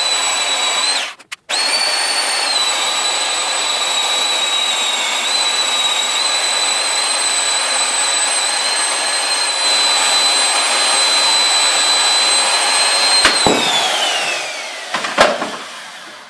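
Portable band saw cutting through a steel railroad rail: a steady motor whine over the rasp of the blade in the steel, cut off briefly about a second in and then restarted. About thirteen seconds in the saw is switched off and its whine falls away as it spins down, followed by a few clunks near the end.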